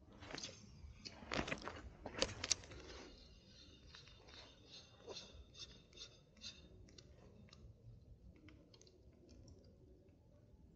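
Close-up handling noise from fishing tackle: a cluster of louder clicks and crunches in the first few seconds, then a run of small, irregular clicks as the rod, reel, line and lure are handled.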